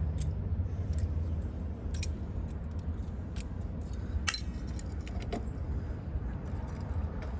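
A key being worked into a stiff lock on a 1974 Honda CB125: scattered sharp metal clicks and clinks of key against lock, over a steady low hum.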